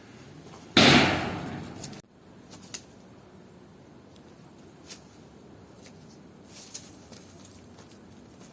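Steady high chirring of crickets or other insects, with a few faint clicks. About a second in, a loud sudden burst of noise fades over about a second and cuts off abruptly.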